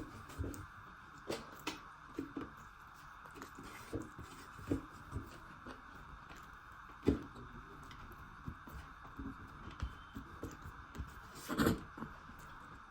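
Close-miked eating sounds: chewing and mouth noises with scattered soft clicks, and a louder burst about three-quarters of the way through, over a steady background hiss.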